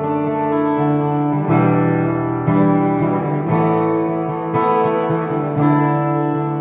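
Acoustic-electric guitar playing an instrumental chord accompaniment. Sustained chords ring, with a new chord struck roughly every second.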